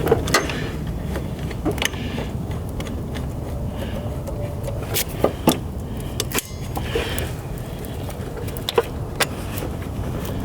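Scattered light clicks and knocks of parts being handled and slid into place on an engine's cooling-system fittings, over a steady low background rumble.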